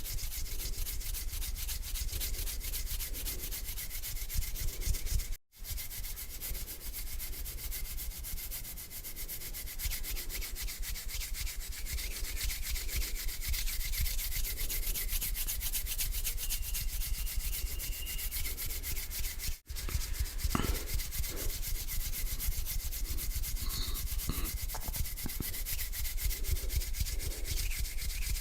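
Hands rubbing together slowly and continuously, a dry rasping skin-on-skin texture, cut by two brief drops to silence.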